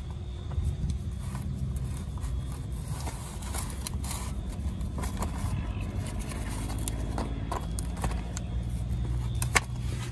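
Metal clinks and light scrapes as a new Spicer truck universal joint and its parts are handled, with a sharp click about nine and a half seconds in. A steady low hum runs underneath.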